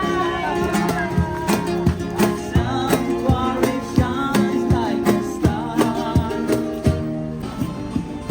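Background music with plucked acoustic guitar and a steady beat.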